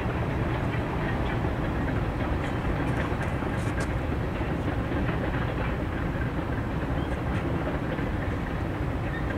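Freight train cars rolling across a long stone arch bridge, a steady rumble. A few faint clicks come about three seconds in.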